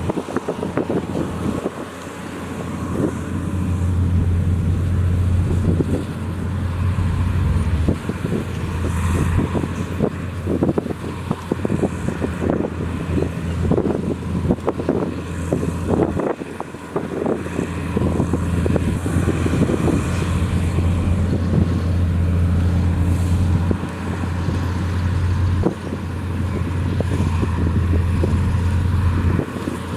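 Heavy earthmoving machine's diesel engine running with a steady low drone that dips briefly a few times, with bursts of rattling and knocking through the middle.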